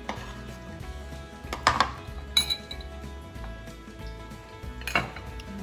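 Kitchenware clinking, three sharp clinks of utensils against dishes, over steady background music.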